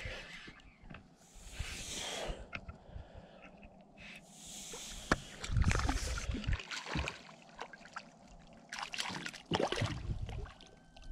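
A small hooked bass splashing at the surface beside an inflatable kayak as it is reeled in and lifted out, in several bursts of splashing, with scattered clicks and knocks from the rod and kayak.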